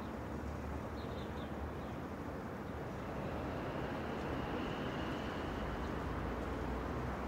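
City street ambience: a steady low rumble of traffic, with a few faint high ticks about a second in.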